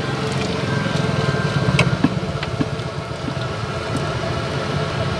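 Steady low mechanical hum like a motor running, with a few sharp metal clinks a couple of seconds in as noodles are worked in the steel boiling pot with a wire strainer and chopsticks.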